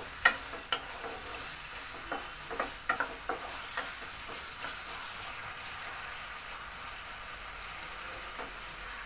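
Potato sticks sizzling in hot mustard oil in a nonstick kadai, with a steady hiss throughout. A wooden spatula stirring them knocks against the pan in a run of sharp taps during the first four seconds, the loudest about a third of a second in.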